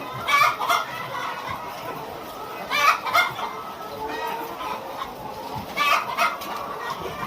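A house of caged laying hens clucking, with a steady din from the flock and three louder calls breaking through about every three seconds.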